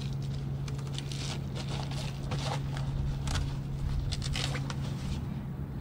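Scattered light clicks and scrapes as the frame and fittings of an Eckla Beach Rolly cart are handled, over a steady low hum.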